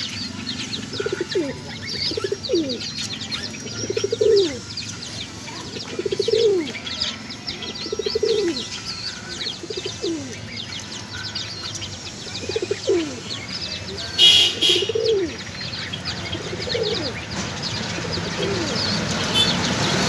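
Jacobin pigeons cooing: a run of short coos that fall in pitch, one every second or two. Small birds chirp high in the background.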